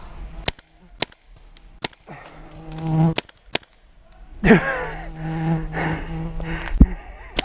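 An animal calling twice in long, drawn-out, steady-pitched calls, the second opening with a falling swoop. Sharp cracks of paintball markers firing come scattered through the first few seconds.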